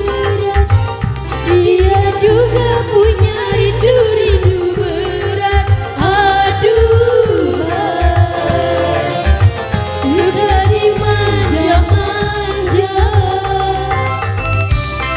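Dangdut koplo band playing live: a steady pulsing drum-and-bass beat under a wavering, ornamented lead melody.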